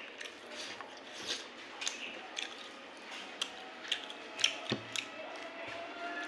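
Close-miked chewing of a mouthful of rice and curry, with irregular soft clicks and smacks of the mouth.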